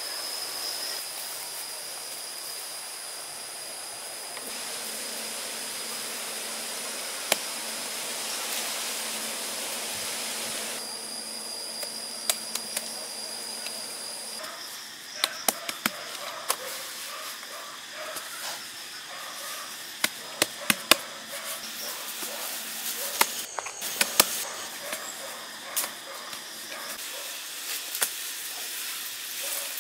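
Hands scooping wet grey mix from a woven basket and smearing and patting it onto the earthen floor of a dug pit, with scattered sharp taps and slaps that come thicker in the second half. A steady high insect drone runs underneath.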